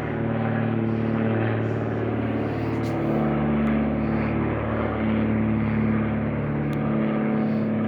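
Piston engine and propeller of a biplane flying over: a steady drone whose pitch shifts slightly a few times.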